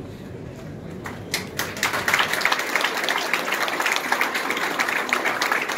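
Audience applauding: a few scattered claps about a second in, quickly building into steady applause.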